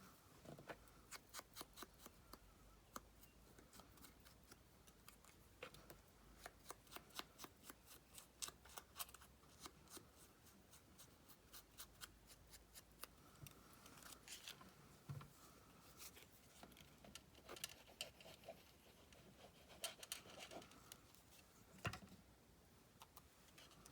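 Faint, quick light clicks and taps, several a second in runs, from paper-craft handwork such as inking or snipping paper, with a couple of louder knocks on the table.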